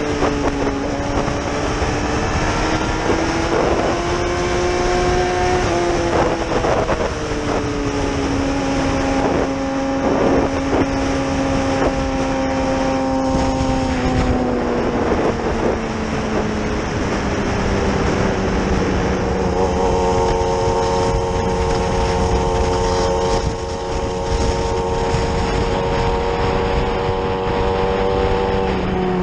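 Yamaha R6's inline-four engine heard from the rider's seat over steady wind rush, cruising with the revs easing off. The engine note drops about six seconds in, falls slowly again a little later, then holds steady.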